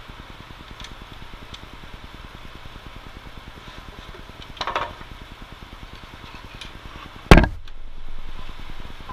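DeWalt DW788 scroll saw running with a Flying Dutchman No. 5 reverse-tooth blade cutting through a wooden workpiece, a steady rapid mechanical chatter. A single sharp knock comes about seven seconds in, the loudest sound.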